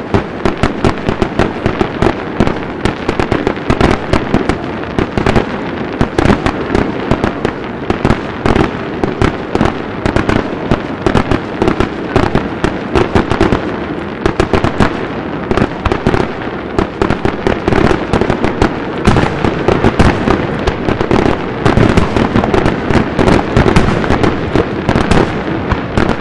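Aerial fireworks shells bursting in a dense, continuous barrage: a rapid run of sharp bangs, several a second, without a break.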